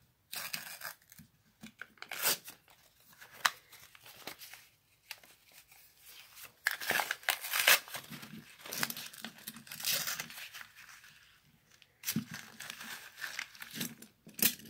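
Paper wrapper of a half-dollar coin roll being torn and peeled open by hand, in irregular tearing and crinkling bursts with a few sharp clicks.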